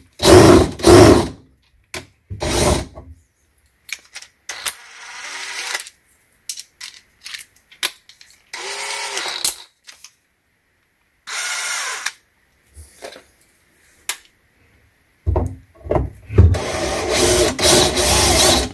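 Power drill running in reverse in several short bursts, the longest near the end, as a Speed Out screw extractor bit bores into a stripped Phillips screw head to grip it.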